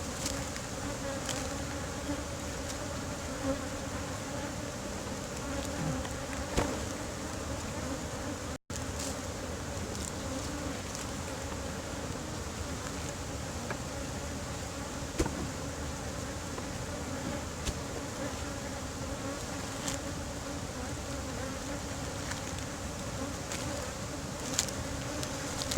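Honeybees buzzing in a steady, dense drone around an open beehive, with a few light clicks and knocks scattered through.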